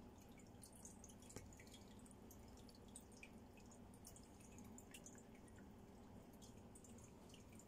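Faint dripping and bubbling of aquarium water: many small irregular drips and bubble pops over a low steady hum.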